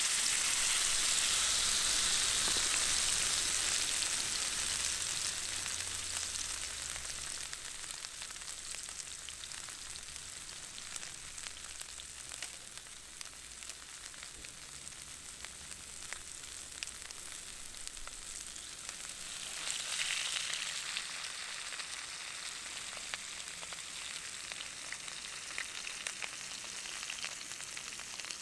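Food sizzling in a hot iron frying pan over a campfire, with small sharp pops. The sizzle starts suddenly and loud, as if the food has just gone into the pan, eases off over several seconds, and swells again about two-thirds of the way through.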